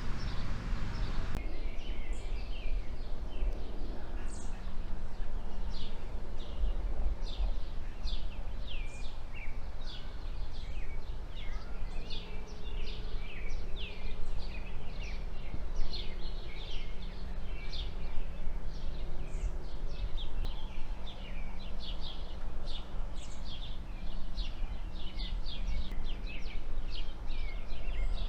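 Birds chirping outdoors: many short, high, falling chirps in quick succession, over a steady low rumble of background noise.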